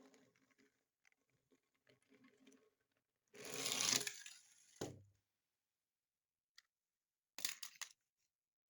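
Toy car packaging being handled and torn open: light rustling, a loud tearing sound about three and a half seconds in, a knock just before five seconds, and a quick run of clicks near the end.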